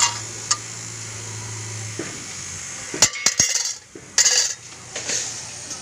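Spartan rebar cutting and bending machine: a steady low hum stops about two seconds in, then a few sharp metallic clicks and clatters from the machine's guard and levers.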